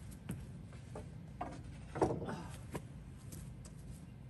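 A few scattered knocks and clatters of archery gear being handled and set down on the wooden deck of a woodshed. The loudest clatter comes about two seconds in.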